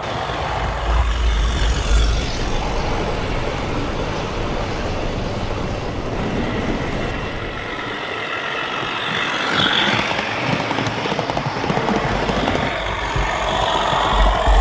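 Simulated Class 37 diesel engine sound from a Hornby HM7000 sound decoder, played through the OO gauge model locomotive's small speaker as it runs. A steady engine drone with deeper rumbles about a second in and near the end.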